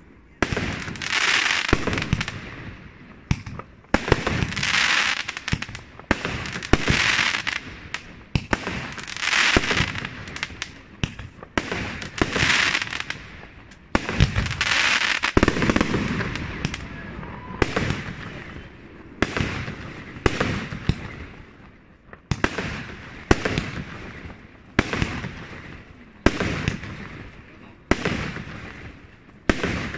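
Fireworks going off in quick succession: a sharp bang about every one and a half to two seconds, each followed by a hissing crackle that fades away.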